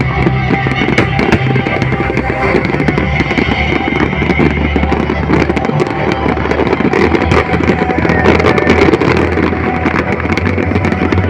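Fireworks bursting and crackling in quick succession over loud music with guitar and drums.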